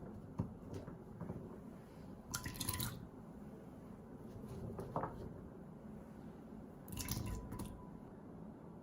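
Two short splashes of water, with a few light kitchen clicks and knocks between them.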